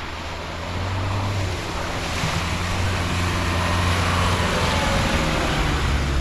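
Toyota Hilux engine pulling steadily as the vehicle drives through a muddy, water-filled stretch of track, with mud and water splashing loudly around the tyres. The splashing grows louder over the first two seconds, then holds.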